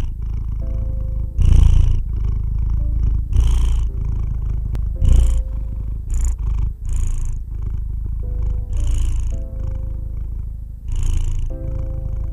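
House cat purring close up: a steady low rumble that swells with a breathier rush every second or two as the cat breathes. Soft background music with held notes runs underneath.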